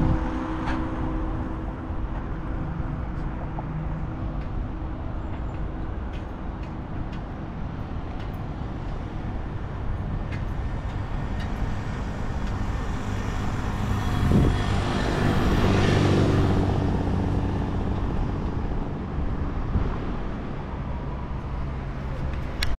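Steady road traffic noise, with one vehicle passing louder about two-thirds of the way through.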